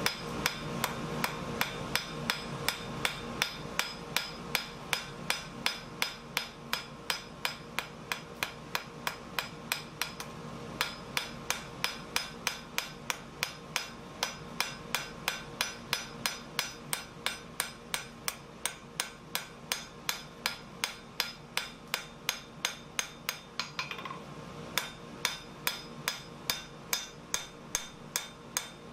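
Hand hammer striking a hot steel blank on an anvil in quick, even blows, about three a second, texturing the blank's surface; the anvil rings between blows. The hammering breaks off briefly twice, about ten seconds in and again near the end.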